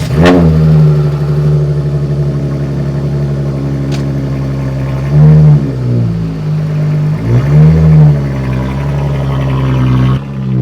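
Dodge Charger engine catching and idling, blipped twice with short revs that rise and fall back, then dropping away near the end. The car is in limp mode with a suspected misfire.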